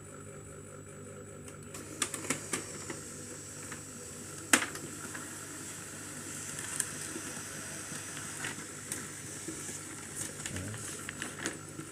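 HP LaserJet Pro M102a laser printer running a manual test print after a new drum unit was fitted: a few clicks about two seconds in as the mechanism starts, a sharp click around four and a half seconds, then steady running as the page feeds through and comes out, with more small clicks near the end.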